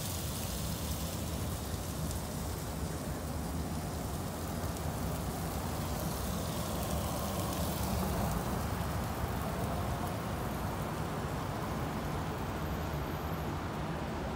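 Steady hum of city traffic, with pork chops sizzling on a barbecue grill in the first seconds.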